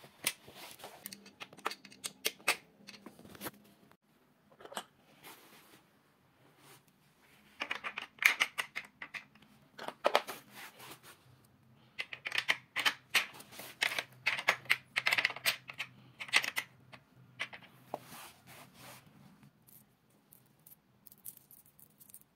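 Small metal hardware being handled and fitted: irregular clicks, taps and scrapes as a sliding-door roller fitting is pushed into the corner of a metal door frame and screws are picked up. The clicking comes in two busier flurries, about a third of the way in and again through the middle.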